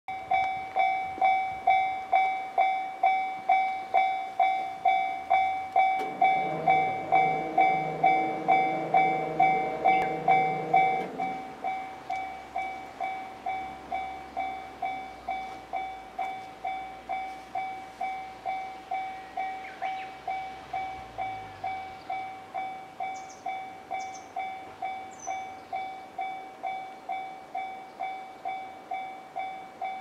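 Railway level-crossing warning bell ringing steadily, about two strikes a second, the ringing of a crossing closed for an approaching train. A low hum joins it from about six seconds in. At about eleven seconds in the bell drops noticeably in volume and the hum fades.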